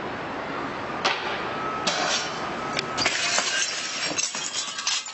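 Wind noise on a small camera's microphone, then a quick run of clattering knocks from about three seconds in as a BMX bike hits the paving below a ledge.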